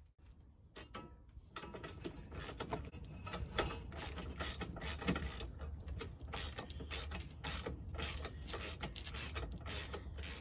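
Rapid, continuous mechanical clicking from hand tools at work on a car's wheel hub assembly, starting about a second and a half in.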